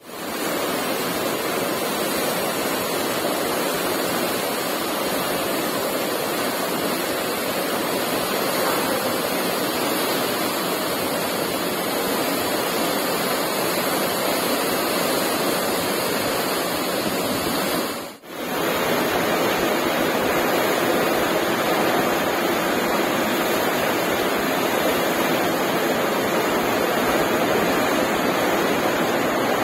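Steady rushing of churning white water in a cruise ship's wake, stirred up by the ship's propellers. It breaks off for a moment about two-thirds of the way through, then carries on.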